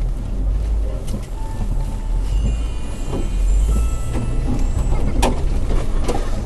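Vehicle engine rumbling low as it crawls slowly over a rough trail, heard from inside the cab, with a few sharp knocks and creaks, two of them near the end.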